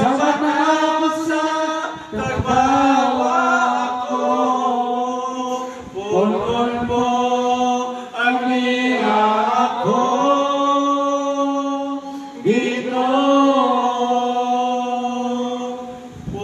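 Male voices singing a slow Cebuano worship song into microphones, in long held phrases that each begin with an upward slide, about one every two seconds.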